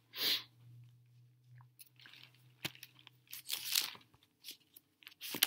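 Pages of a Bible being flipped by hand: a series of short papery rustles and flicks, the loudest about two-thirds of the way through.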